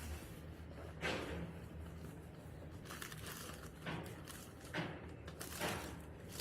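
Packaging being handled as items are taken out of a box: a few brief crinkling rustles, about four in all.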